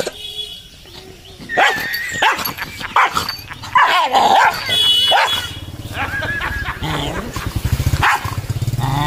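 A dog barking and snarling at its own reflection in a mirror, several sharp barks in the first half. About halfway in, a low steady engine hum comes in as a motorcycle passes.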